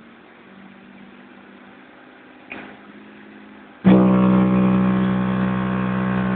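Two 18-inch subwoofers burping: a short full-power bass test tone played for an SPL reading. It starts abruptly about four seconds in, holds steady and buzzy with a stack of overtones, then cuts off after under three seconds. A faint low hum and a single click come before it.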